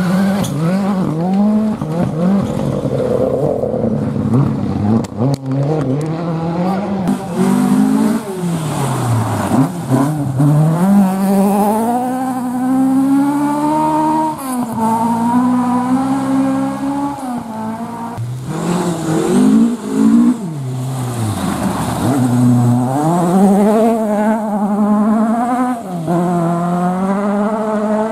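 Rally car engine revving hard, its pitch repeatedly climbing through the gears, dropping away as the driver lifts or downshifts, then climbing again. A few sharp cracks come about five to seven seconds in.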